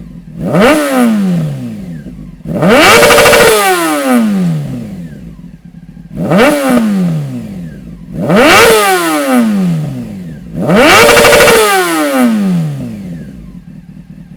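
Honda CBR 600 F4i's inline four-cylinder engine revved through an aftermarket Dominator exhaust silencer in five sharp throttle blips, each rising fast and falling back to idle, the second and last held briefly at high revs.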